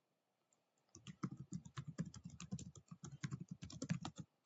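Computer keyboard typing: rapid, irregular key clicks starting about a second in, as a note is typed.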